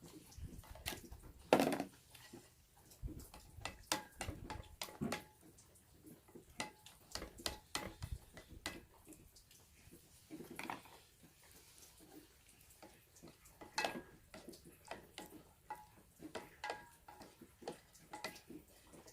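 Ramen being eaten from a metal basin: irregular clinks and scrapes of utensils against the metal, with wet slurping noises.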